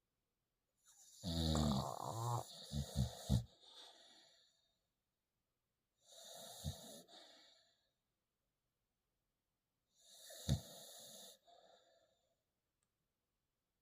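A sleeping puppy snoring loudly, three snores spaced a few seconds apart. The first is the longest and ends in a quick rattling flutter. The next two each have a short sharp snort in the middle.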